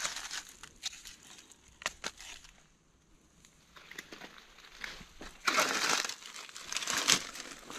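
Dry leaf litter crackling and rustling as it is disturbed. A few sharp crackles come in the first couple of seconds, then a near-quiet moment, then two louder rustling bursts toward the end.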